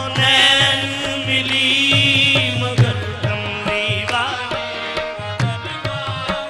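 Qawwali-style naat: a male lead voice sings long, ornamented phrases over a sustained harmonium and a steady tabla rhythm.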